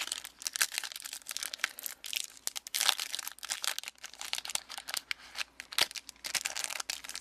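Foil trading card booster pack crinkling and being torn open by hand, with irregular crackles and rustles.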